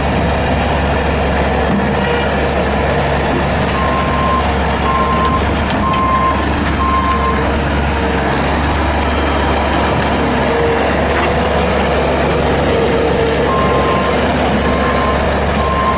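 Bobcat S450 skid steer loader's diesel engine running steadily. Its backup alarm beeps about once a second while reversing, for a few seconds about four seconds in and again near the end.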